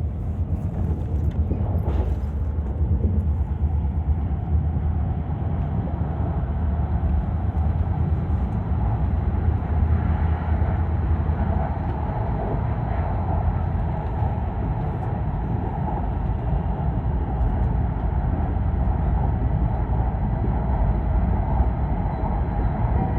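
Steady low rumble of an E5-series Shinkansen train running, heard inside the passenger car.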